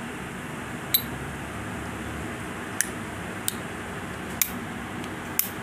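Five short, sharp clicks at uneven intervals over a steady background hum.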